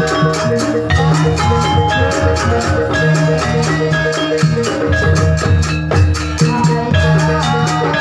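Gamelan-style ensemble music playing: rapid struck metal-keyed notes in a repeating pattern over low drum beats.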